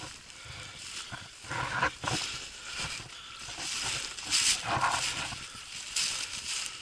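Footsteps crunching through snow and dry grass along a stream bank, with irregular rustling; the loudest steps come about a second and a half in and again around four and a half seconds in.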